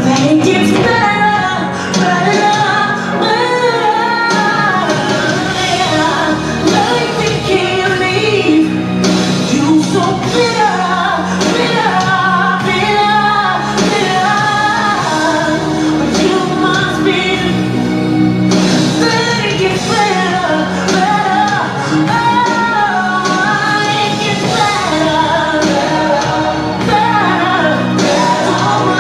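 A pop-style song with a female voice singing the lead over instrumental accompaniment.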